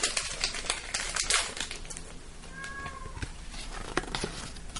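Foil Pokémon booster pack wrapper crinkling and rustling as the pack is picked up and handled, with scattered light clicks and taps. A faint short arched tone comes about halfway through.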